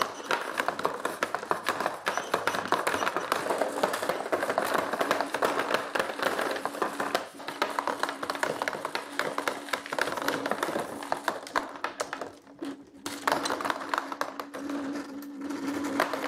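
A 3D-printed automatic marble sorter running at high speed: steel marbles clicking and clattering on its chain conveyor in a fast, continuous rattle over the steady hum of its stepper motor. The clatter dips briefly about three-quarters of the way through.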